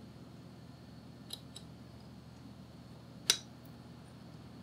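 A few light metallic clicks of a small screwdriver against the mounting screws and bracket of a Raspberry Pi heatsink, the loudest about three seconds in, over a low steady hum.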